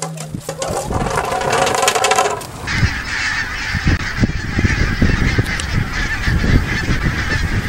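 A large flock of geese honking in flight, a dense continuous chorus of many overlapping calls. A low, gusty rumble runs underneath.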